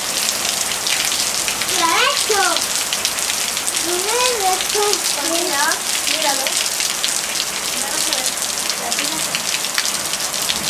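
Steady rain falling, a dense hiss of many fine drop ticks hitting close by.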